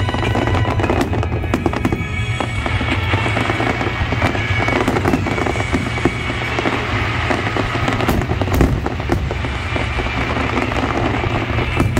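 Fireworks display: dense, continuous bursts and crackling of shells, with a sharper bang about eight and a half seconds in, while music with held tones plays underneath.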